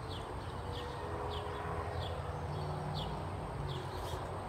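A bird chirping over and over: short, high, falling notes about once a second, over a steady low outdoor rumble.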